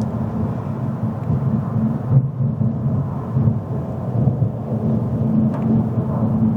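Steady low rumble of a car's engine and tyre noise heard from inside the cabin while driving at speed.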